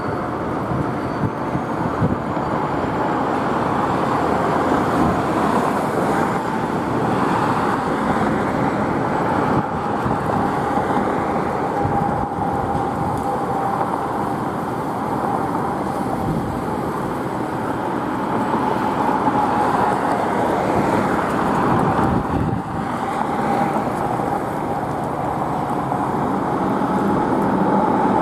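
Steady vehicle noise from emergency vehicles running at the station apron, mixed with road traffic. A faint steady whine holds throughout, with no siren sounding.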